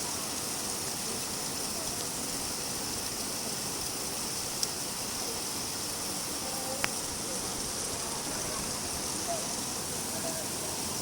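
Steady rain falling, an even hiss, with two sharp single drip taps near the middle, about two seconds apart.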